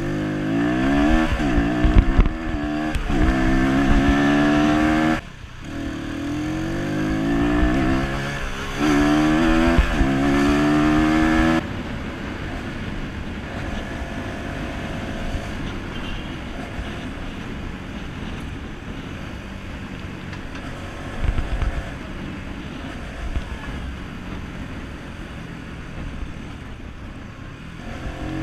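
Stock Voge Brivido 125R motorcycle engine pulling hard through the gears, its pitch rising and dropping back at each shift, with a brief lift off the throttle about five seconds in. About twelve seconds in the throttle closes and the engine falls to a low, steady running note with road and wind noise for the rest.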